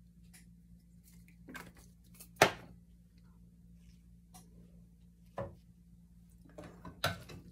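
Kitchen items being handled: a few sharp clicks and knocks, the loudest about two and a half seconds in and another about five and a half seconds in, with a short flurry of small knocks near the end.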